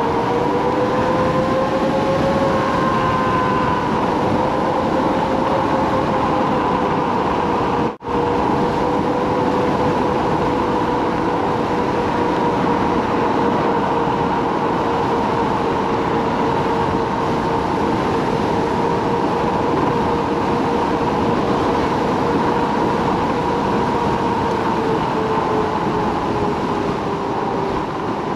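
Kaabo Wolf King GT electric scooter's hub motors whining steadily at cruising speed, with wind and road noise; the whine rises a little at the start as it speeds up and sinks slightly near the end as it slows. The sound drops out for an instant about a third of the way through.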